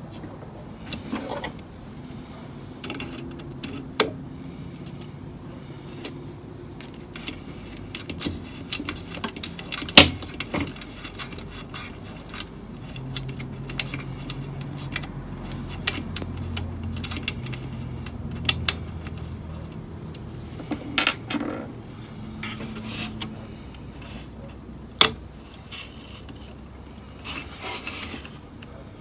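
A metal IF transformer can on a valve radio chassis being gripped and worked by hand to get it off: irregular rubbing and scraping of metal with scattered clicks and knocks. The sharpest click comes about ten seconds in and another near twenty-five seconds. The can does not come free because it is held down by a spring.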